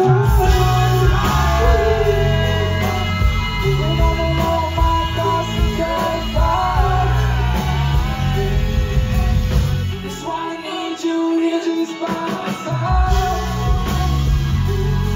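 Loud live rock-style band music with a male vocalist singing into a microphone, heard from within the crowd. The heavy bass and drums drop out about ten seconds in, leaving the voice and higher instruments, then come back in about three seconds later.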